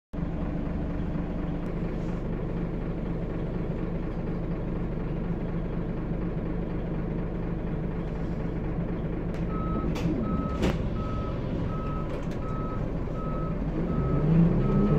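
Scania L94UB single-decker bus's diesel engine idling, heard from inside the saloon, with two sharp clicks about ten seconds in. Shortly after nine seconds a high electronic beep starts repeating about twice a second, and near the end the engine revs rise.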